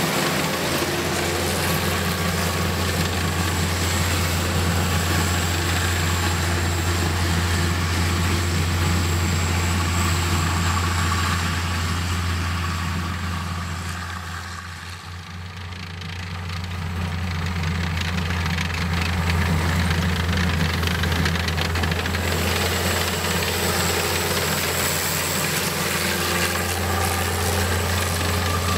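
The M4 High Speed Tractor's engine running steadily as the tracked vehicle drives over sandy ground. It fades for a few seconds around the middle as the vehicle draws off, then comes back up.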